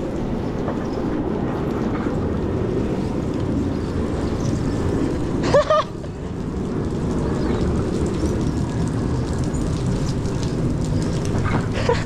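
Steady low rumble of wind buffeting a body-worn camera's microphone. About five and a half seconds in there is a brief vocal sound.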